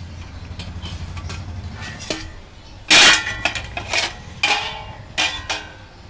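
A stainless steel plate used as a lid is lifted off a steamer pot, clanking against the metal rim: one loud ringing clang about three seconds in, then a few lighter clinks. A low steady hum runs under the first two seconds.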